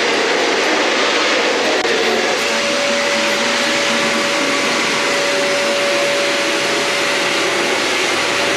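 Warm-air car dryer blower running steadily, a loud even rush of air with a steady whine that comes in about two seconds in.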